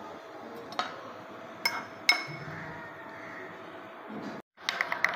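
Metal spoon clinking against a glass bowl while stirring fuller's earth (multani mitti) powder and rose water. There are three sharp, ringing clinks in the first two seconds or so. After a brief break near the end comes a quick run of rapid clinks and scrapes.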